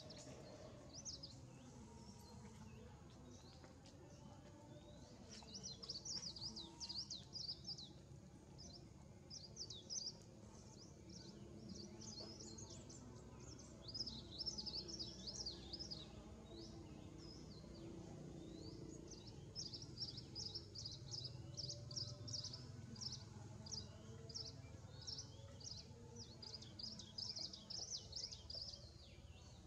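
Small birds chirping in quick, overlapping high calls, many short notes a second, over faint low background noise.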